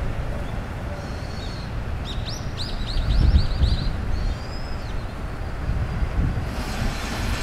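Small songbirds chirping: a quick run of about ten chirps two to three seconds in and a down-curving call a little later. Underneath is a steady low rumble of wind on the microphone, with a broad hiss swelling near the end.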